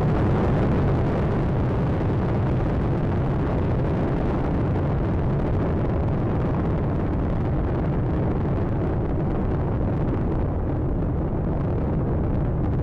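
Space Shuttle Atlantis climbing out: the steady, deep rumble of its two solid rocket boosters and three main engines, the higher hiss thinning slightly over the last few seconds.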